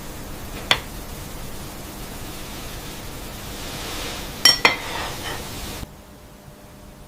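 Steady hiss with one sharp click about a second in and two ringing clinks of a hard object about four and a half seconds in; the hiss cuts off suddenly near the end.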